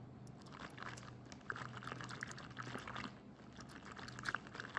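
Wire whisk beating thick yogurt and cream in a plastic tub: faint, quick, irregular wet slapping and clicking.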